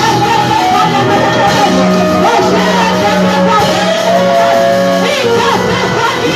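Live worship music: voices singing long held notes over a band with a sustained bass line.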